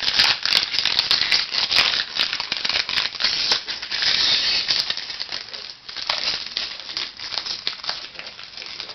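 Foil wrapper of a 2007 SP Authentic football card pack crinkling and crackling as it is handled and pulled open. The crackle is dense and loud for the first half and thins out toward the end.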